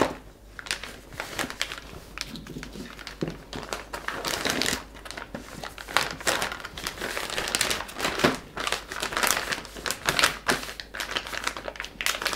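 Clear plastic vacuum-sealer bag crinkling and rustling as peeled white asparagus spears are slid into it by hand and the bag is pressed flat, in an irregular run of crackles.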